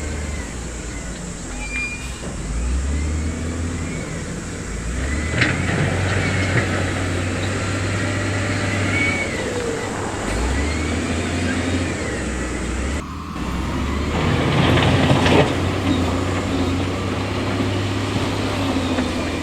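Heavy diesel construction machinery running, its low engine note shifting up and down as it works. A louder rushing burst comes about fifteen seconds in.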